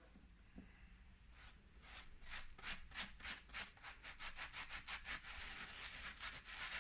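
A rag scrubbing sooty fireplace brick. It starts about a second and a half in as quick back-and-forth strokes, about four or five a second, then turns into more continuous rubbing.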